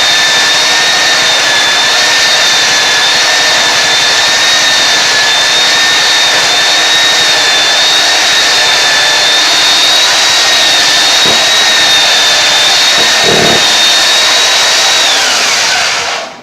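Belt sander running steadily with a high whine while stripping old vinyl floor tile. It is switched off near the end, and its whine falls in pitch as it winds down.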